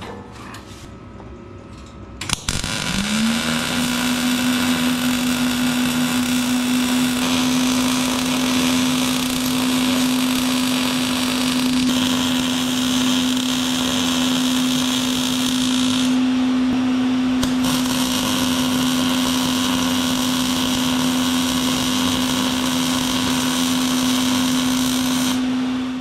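Fume extractor motor switching on about two seconds in, its hum rising briefly in pitch as it spins up and then holding steady. A dense sizzling hiss runs over it, changing a few times, typical of MIG welding in progress, and both stop at the end.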